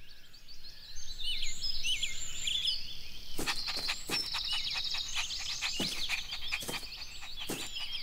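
Outdoor birdsong ambience: several small birds chirping and trilling over a faint steady hiss, with a few short clicks from about the middle on.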